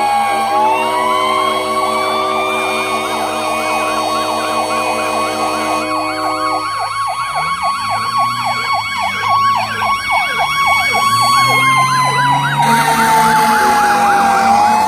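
Several fire engines sounding sirens and horns together: a wailing siren that rises, holds and winds back down near the end, with a fast electronic yelp warbling over it. A chord of steady horn tones, the engine's train horns, is held until about seven seconds in and then stops.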